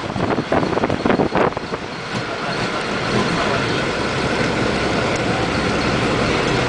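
Inside a moving bus: steady engine and road noise, with an uneven clatter in the first second and a half.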